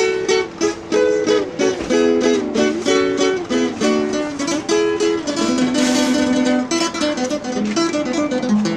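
Acoustic guitar played live, chords strummed in a quick, even rhythm.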